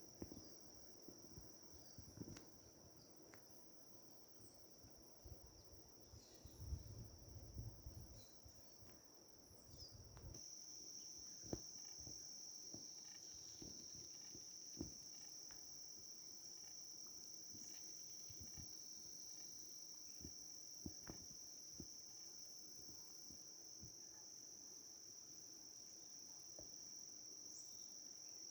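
Faint, steady high-pitched trilling of insects, growing louder about ten seconds in. Scattered light clicks and a brief low rumble come through around seven seconds in.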